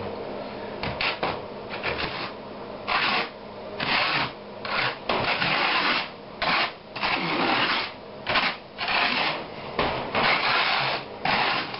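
Hand trowel scraping and spreading thinset mortar over wire mesh on a plywood-type (aspenite) subfloor. It goes in repeated short scraping strokes, about one or two a second, as the parge coat is worked flat.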